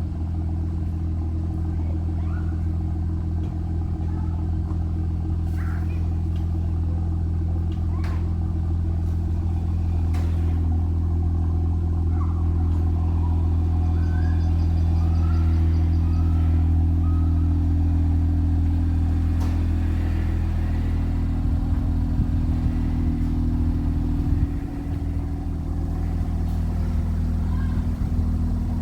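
BMW M2's engine running at a steady idle, with a few light clicks over it.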